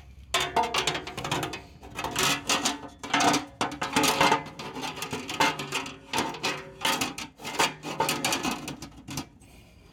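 Sheet-metal belt guard cover being fitted over a belt-driven pressure washer's pulleys: a long run of irregular metallic clicks, knocks and rattles with some ringing of the metal, stopping shortly before the end.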